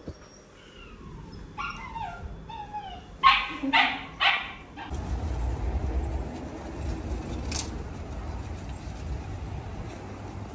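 A dog gives a few short falling whines, then three loud barks in quick succession. A low rumbling noise follows.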